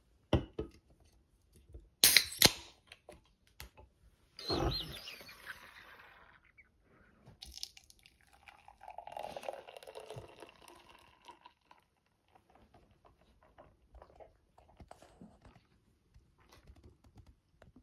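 A can of stout being opened: a few clicks and two loud sharp snaps of the ring-pull about two seconds in, then a burst of hissing gas. Then the stout is poured into a glass, a stream of liquid splashing and foaming that tails off into faint trickles.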